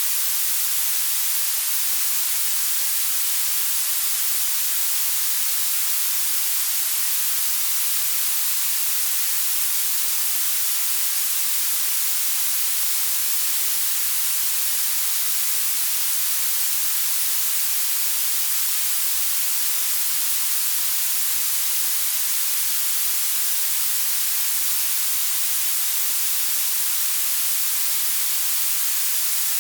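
Blue noise: a steady synthetic hiss whose strength rises toward the highest pitches, bright and thin with almost no low end.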